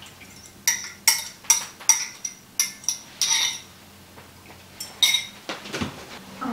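A metal kitchen utensil clinking against cookware while scrambled eggs are made: about eight quick ringing taps in a row over a few seconds, then another clink and a short scrape near the end.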